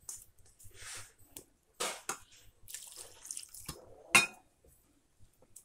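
Gram flour (besan) being mixed by hand with liquid into a wet batter in a stainless steel bowl: irregular rubbing, scraping and squelching. One loud sharp clink against the steel bowl, ringing briefly, a little after four seconds in.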